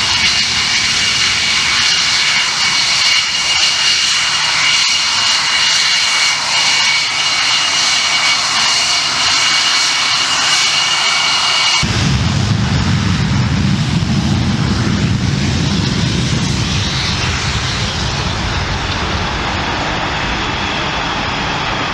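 Twin Rolls-Royce Avon turbojets of an English Electric Lightning running as the jet taxis away: a loud high-pitched whine with steady ringing tones. About twelve seconds in, the whine cuts off suddenly and a deeper rumble takes over.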